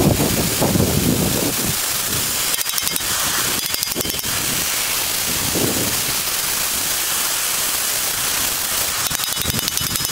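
Oxyacetylene torch with a number 6 rosebud heating tip burning with a steady hiss, its flame playing on thick steel to heat it until it can be bent.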